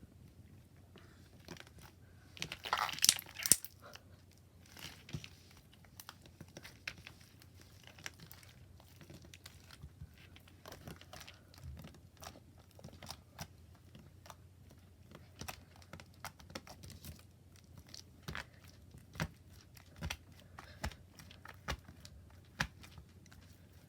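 Hands squishing and pulling borax-free clear slime, making scattered sticky clicks and small pops, with a louder run of crackling squelches about three seconds in.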